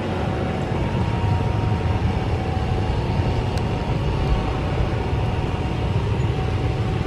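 Twin-engine narrow-body jet airliner's engines idling at a distance as it holds on the runway before takeoff: a steady low rumble with a faint, even whine over it.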